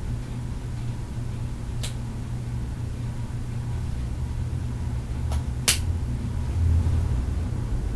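A steady low hum, with one sharp click about two seconds in and a pair of clicks near six seconds, the second of them the loudest.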